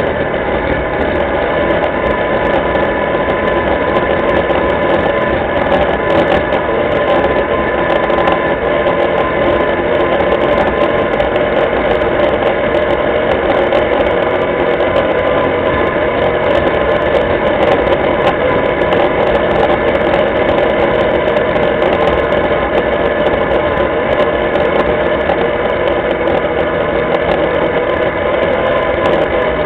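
Linhai ATV engine running steadily as the quad is ridden along at an even pace, heard from a camera mounted on the machine. The engine note holds steady, with no revving.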